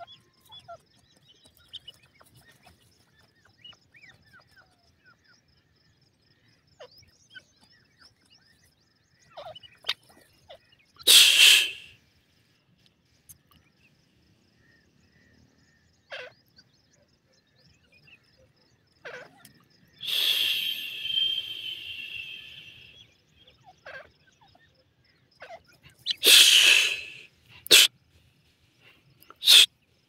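Grey francolins dust-bathing in loose dry soil: faint scratching and pecking, broken by several short rustling flurries of dust and feathers, the longest about three seconds.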